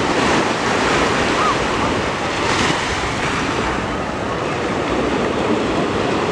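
Small sea waves washing steadily onto the shore, with wind buffeting the microphone.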